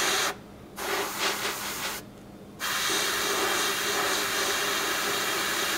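Airbrush spraying paint: a steady hiss of air and paint, broken off twice in the first few seconds as the trigger is let go, then running steadily. A faint low steady hum sits beneath.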